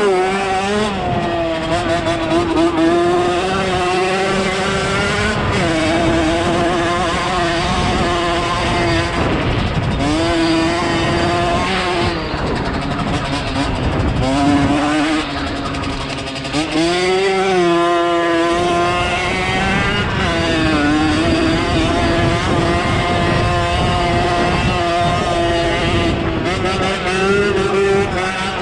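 Dirt bike engine running hard while being ridden around a motocross track. Its pitch holds fairly steady, dipping and rising again every few seconds as the throttle is rolled off and back on and the gears change.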